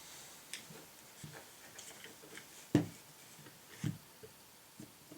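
Light clicks and taps of small pistol parts being handled as the locking block pin is fitted into a Glock 22 Gen4 frame, with two sharper knocks a little before the middle and about a second later.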